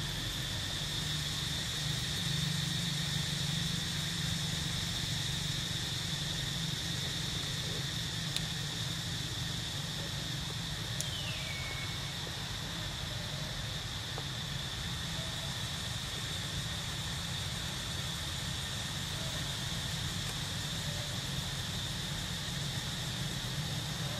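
Outdoor ambience of insects droning steadily on one high pitch over a low steady hum, with a single short falling squeal about eleven seconds in.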